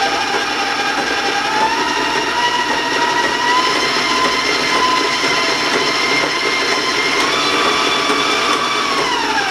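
Electric stand mixer motor running at raised speed, beating crumbly cookie dough to bring it together into a dough: a steady whine whose pitch steps up a little early on and falls away near the end as the mixer slows.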